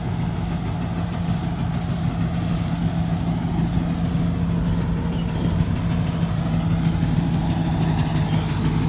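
Rice combine harvester's engine running steadily, a continuous drone at an unchanging pitch.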